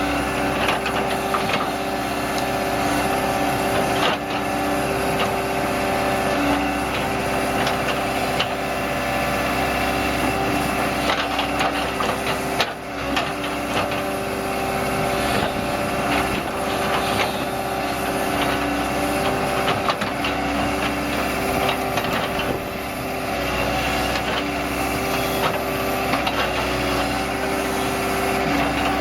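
Tracked excavator's diesel engine running steadily, with scattered knocks and clacks of rock being moved.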